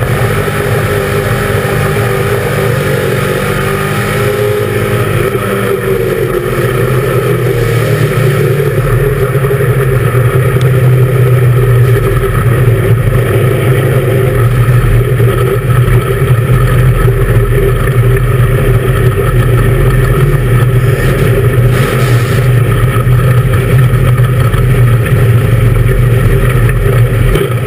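Dirt-track race car engine running hard at racing speed, heard loud from inside the cockpit. Its pitch shifts up and down over the first several seconds, then holds steadier and a little louder.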